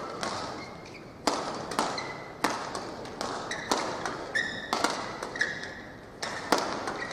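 Badminton rackets striking shuttlecocks on neighbouring courts: sharp, irregular knocks, several in each second or two, mixed with short squeaks of shoes on the court mats.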